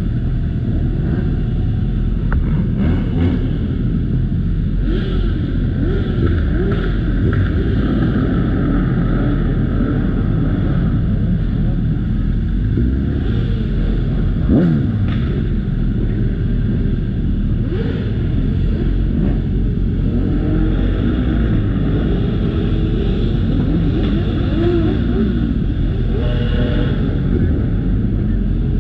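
Motorcycle engines running under way, their pitch rising and falling again and again as they rev up and ease off, over a steady low rumble.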